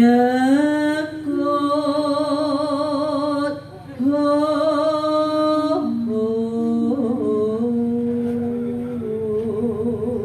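A woman singing into a handheld microphone in slow phrases of long held notes with vibrato.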